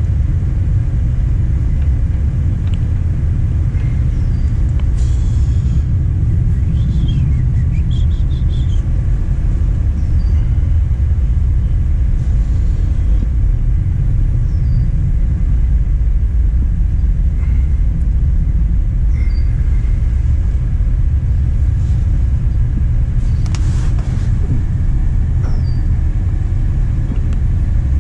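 A steady low rumble throughout, with a few faint short clinks over it.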